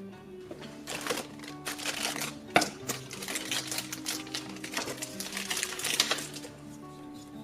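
Small plastic toy pieces and their packaging being handled: a dense run of rapid clicks and crinkles, with one sharp click about two and a half seconds in. Light background music plays underneath.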